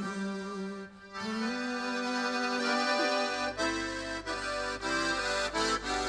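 Accordion playing held chords that break off briefly about a second in. From about three seconds in it moves to shorter rhythmic chords, with a low bass note sounding underneath.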